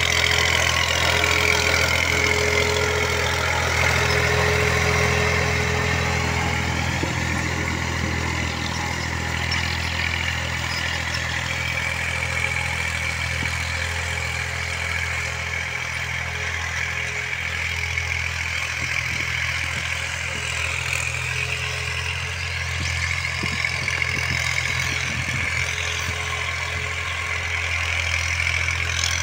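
Farm tractor's diesel engine running steadily, a low even engine note with a thin higher whine over it.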